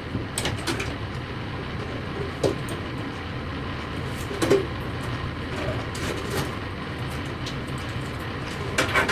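A few light plastic clicks and knocks as a SATA power cable is handled and plugged into a hard disk, over a steady low background rumble.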